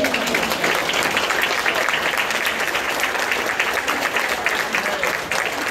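Audience applauding: dense, steady clapping from many hands that eases off near the end.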